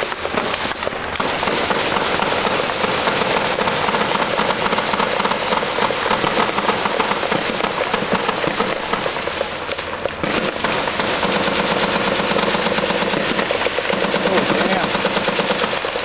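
Sustained automatic gunfire in a night firefight: rapid shots overlapping almost without a break, easing briefly about ten seconds in and again near fourteen seconds.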